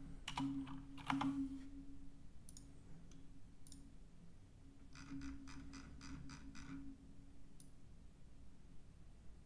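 Faint computer keyboard typing and mouse clicks: a few keystrokes about a second in, then a quick run of about eight keystrokes a few seconds later.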